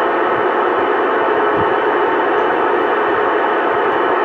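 Steady static hiss from a CB radio receiver, the channel open with no voice coming through.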